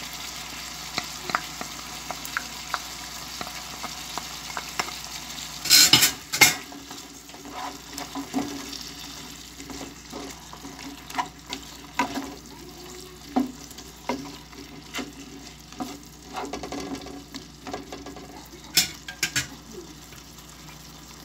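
Chicken pieces sizzling in a pot in oyster sauce while a wooden spatula stirs them, knocking and scraping against the pot. There are two louder clatters, one about six seconds in and one near the end.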